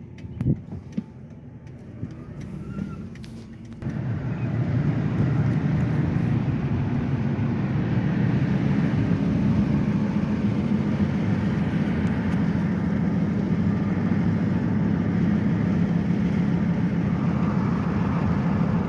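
Steady engine and road noise of a 2002 Ford F-150 being driven. It starts abruptly about four seconds in, after a quieter stretch with a couple of sharp knocks near the start.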